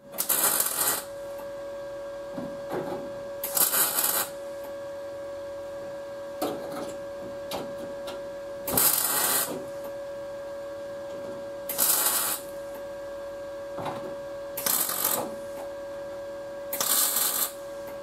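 ARCCAPTAIN MIG200 MIG welder laying short stitch welds along the seam of a sheet-metal quarter-panel patch: six bursts of arc noise, each under a second, a few seconds apart. A steady hum runs between the welds.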